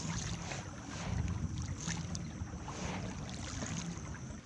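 Wind rumbling on the microphone on open water, with a thin steady high-pitched tone and a few faint taps above it.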